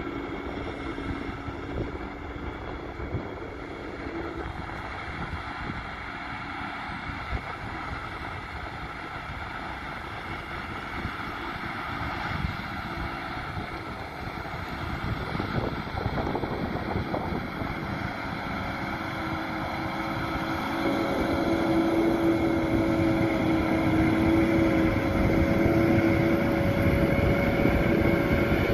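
Krone Big X 630 self-propelled forage harvester chopping grass, with a Fendt Vario tractor and loader wagon running alongside: a steady engine and machinery drone with a high hum over it, louder from about two-thirds of the way in as the machines come closer. Some wind on the microphone.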